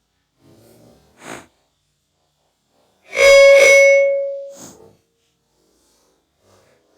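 An iPhone sound effect played back slowed down: a faint click, then about two seconds later a loud ringing tone with several steady partials that fades away over about a second and a half.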